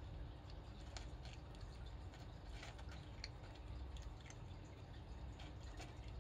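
Cat eating dry kibble: faint, irregular small crunches as it chews, over a low steady rumble.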